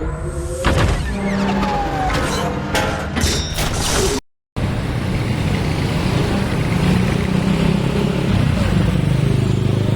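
Rapid sharp clicks and clanks with short sliding tones, a mechanical sound effect. The sound drops out abruptly to silence about four seconds in, then a steady road vehicle engine rumble with traffic noise follows.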